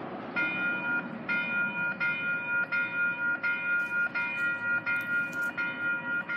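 Light-rail train's warning bell ringing over and over as the train approaches the platform, one even ding a bit more than once a second, over the low rumble of the train on the rails.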